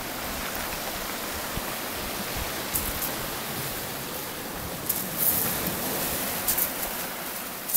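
Surf washing onto a shingle beach among rocks, a steady rush of water. A few short crunches of shingle come in the second half.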